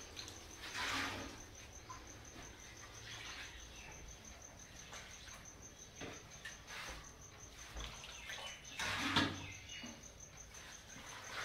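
Long metal skimmer ladle stirring and scooping thick broth in a large metal cooking pot, with a louder swishing scoop about a second in and another near the end. A faint steady high-pitched whine runs underneath.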